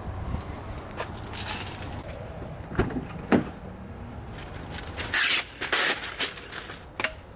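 A car door being opened and handled: a few sharp clicks and knocks like the latch and handle, and two short bursts of rustling or rubbing about five to six seconds in.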